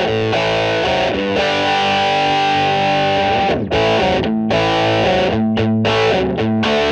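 Music: a distorted electric guitar playing chords, one held for about two seconds and then shorter choppy chords, as a demo track run through a Siemens W295-style three-band EQ.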